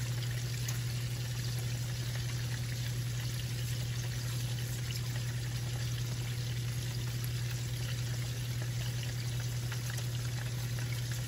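A steady low hum under an even hiss, with a few faint light clicks.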